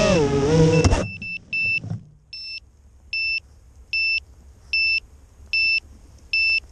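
FPV quadcopter's motors whining, their pitch rising and falling with the throttle, then cutting off abruptly about a second in as the drone crashes into the grass. After that its buzzer sounds a short high beep about every 0.8 s, the lost-model alarm of a downed quad.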